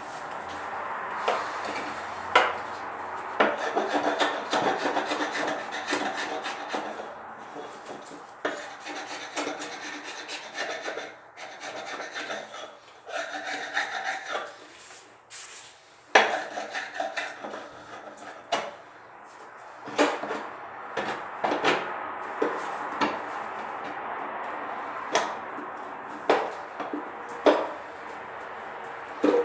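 Scraping and rubbing sounds broken by many sharp knocks and clicks, as of hand work during a repair; one louder knock comes about halfway through.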